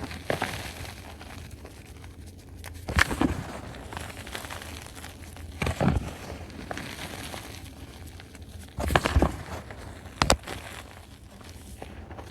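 Dry reformed chalk crunching and crumbling close to the microphone, in about five short bursts a few seconds apart.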